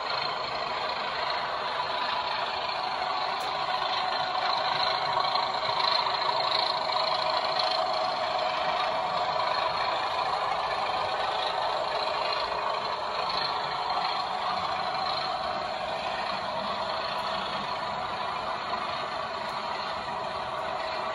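Model Class 37 diesel locomotive's DCC sound decoder playing its English Electric engine sound through the model's small onboard speaker, running steadily as the train passes.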